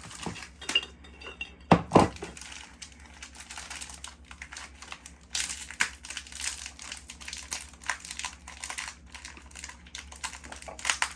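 Plastic cookie wrapper crinkling while cookies are dropped into a cookie jar, with two sharp knocks close together about two seconds in and many small clicks, the crinkling getting louder about halfway through.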